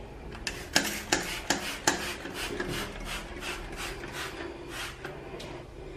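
Plastic trigger spray bottle squeezed again and again, each pull a short click and hiss of spray, about two or three a second, loudest in the first two seconds.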